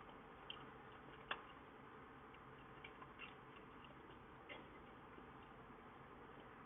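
Near silence: a steady faint hiss with a few small, scattered clicks, the sharpest about a second in.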